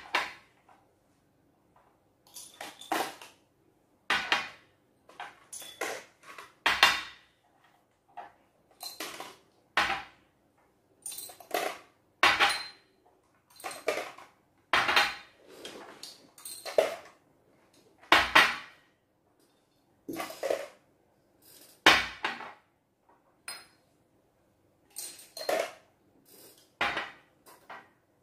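Small glass jars clinking against each other and knocking on a tabletop as they are picked up and set down: irregular sharp clinks, roughly one a second, each with a short glassy ring.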